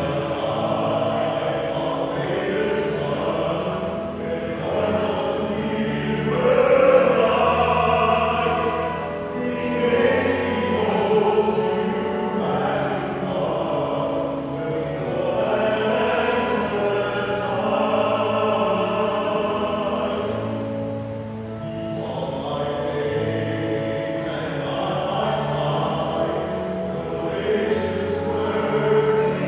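Offertory hymn sung by a choir, with sustained, held accompaniment under the voices.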